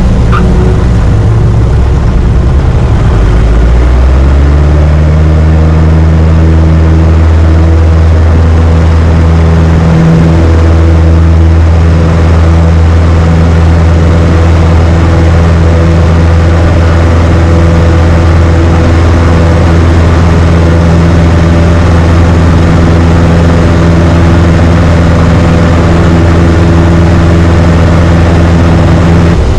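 Citabria's propeller engine at takeoff power, heard from inside the cockpit: its pitch rises over the first few seconds, then holds a loud, steady drone through the climb-out. A low rumble sits under it at the start and stops about four seconds in.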